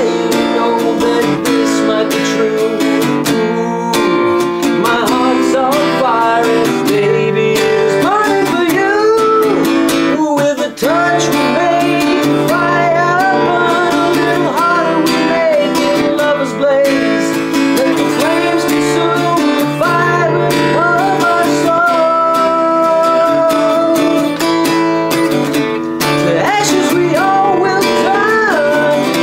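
A man singing while strumming chords on an acoustic guitar, the voice rising and falling over a steady strum.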